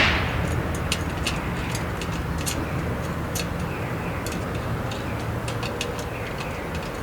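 Wood fire crackling in a fire stand: irregular sharp pops, about a dozen, over a steady low rumble.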